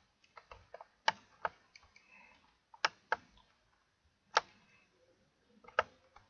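Computer mouse clicking: about a dozen sharp clicks at irregular intervals, several in quick pairs, with short quiet gaps between.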